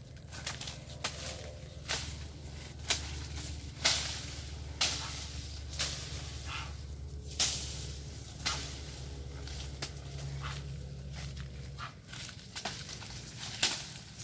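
Dense dry brush being cleared by hand: sharp strikes through stalks and undergrowth about once a second, with crackling of dry leaves and stems between them. A steady low rumble underneath stops near the end.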